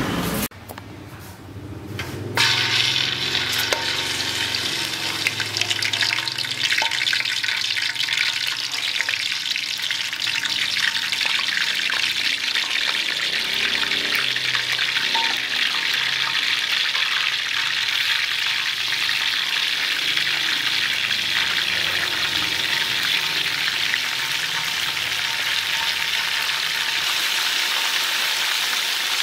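Whole split quail frying in hot oil in a wok: a steady sizzle that starts suddenly about two seconds in.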